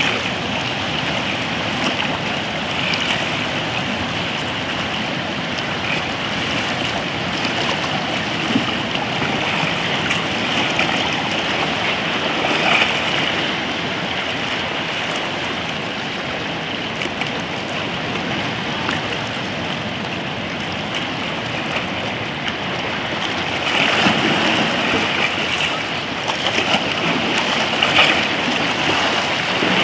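Shallow sea water washing and lapping around rocks: a steady rush of small waves, with a few louder splashes near the end.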